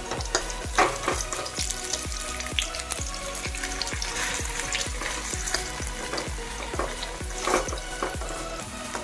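Pointed gourd (potol) frying in hot oil in a karahi, sizzling steadily, while a spatula stirs it with repeated short clicks and scrapes, and a couple of louder clacks against the pan.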